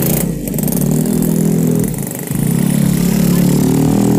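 Motorcycle engine running under way, with a brief drop about two seconds in as the throttle eases, then picking up again.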